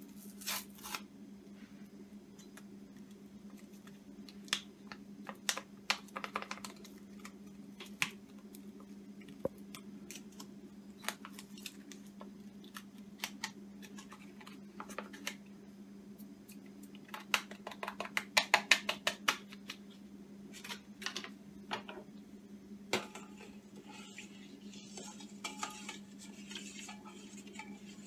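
A small paper packet of starter culture being handled and torn open: scattered crisp clicks and crinkles, a quick run of louder clicks a little past halfway, and softer rustling near the end. A steady low hum runs underneath.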